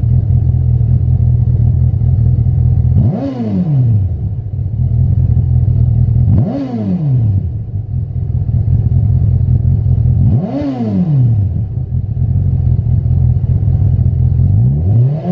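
Honda CB1000R inline-four engine idling through a Lextek RP1 aftermarket silencer. It is blipped three times, each rev rising and falling back to idle within about a second, and a fourth, longer rev begins near the end.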